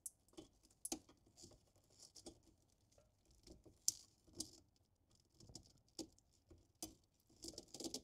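Faint, irregular clicks and scrapes of a flat-blade screwdriver prying a plastic wiring-connector clip back and forth against a metal bracket to pop it loose.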